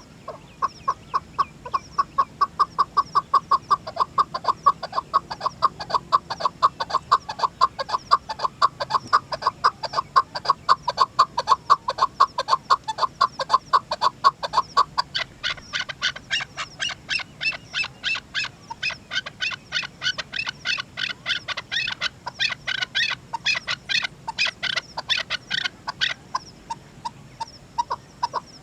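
Chukar partridge calling: a long run of rapid, evenly repeated clucking notes, about four a second. About halfway through the notes shift higher and fuller, then drop back to the lower pitch near the end.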